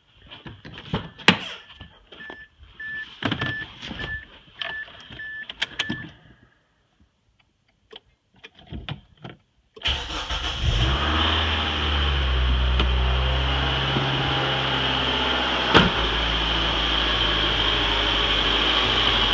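A car's chime beeps about twice a second among clicks and knocks. About ten seconds in, the rebuilt Mazdaspeed Protege 2.0-litre turbocharged four-cylinder starts and idles, its rumble settling over the first few seconds, with no rattling.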